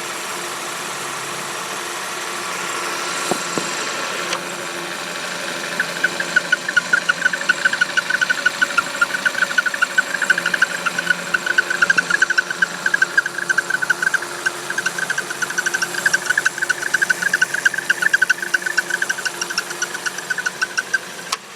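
Buick Encore engine running, with a rapid high squeaking chirp, several a second, that sets in about six seconds in and cuts off near the end. The squeak sounds like a failing belt pulley but is air leaking out past the crankshaft seal.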